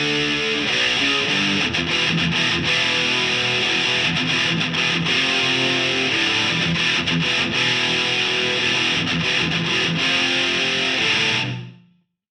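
Heavily distorted electric guitars, several rhythm tracks layered, playing palm-muted chugging metal riffs through an amp simulator, with no drums or vocals. The playing stops and rings out quickly near the end, then silence.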